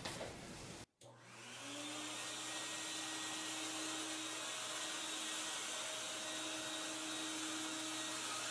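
Vacuum motor starting after a moment of silence about a second in, spinning up over about a second and then running steadily with a whooshing hiss and a steady hum. It is blowing air into an air-caster platform to float a bandsaw.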